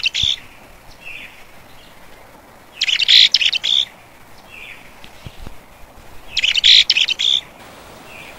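A songbird singing a short, busy, high-pitched phrase of about a second, repeated about every three and a half seconds, each phrase followed by a softer short note.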